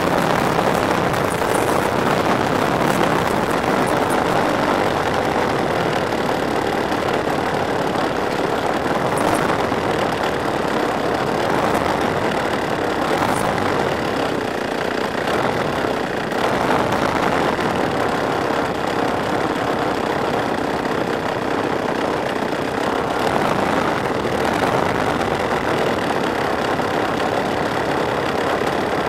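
Two-stroke Husqvarna chainsaw engine, converted to drive a giant-scale radio-control model plane, running steadily with its propeller as the plane taxis. It is heard close up from a camera mounted on the plane.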